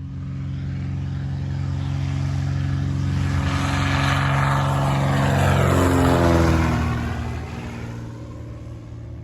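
Propeller airplane flying past. The engine and propeller drone grows louder to a peak about six seconds in, then drops in pitch and fades as it goes by.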